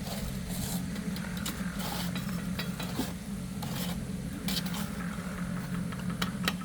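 A motor runs steadily with a low hum, while scraping and clicking work noises come and go over it.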